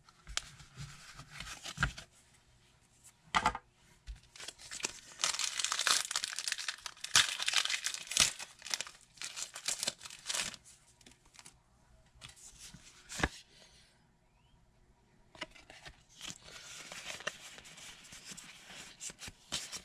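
Pokémon Battle Styles booster pack's foil wrapper crinkling and tearing open, with two long stretches of crinkling a few seconds apart. The fresh cards are handled after it, with a few sharp knocks along the way.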